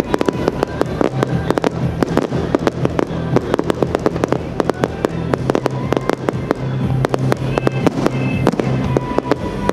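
Fireworks crackling and popping in a dense, rapid run of sharp reports, many each second, with no break.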